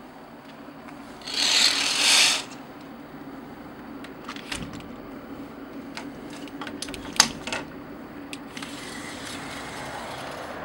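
A curtain pushed aside with a loud rustle lasting about a second, then scattered clicks and knocks as the balcony door is opened and passed through, over a steady low hum.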